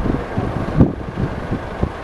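Wind buffeting the microphone in irregular low thumps over a steady low rumble.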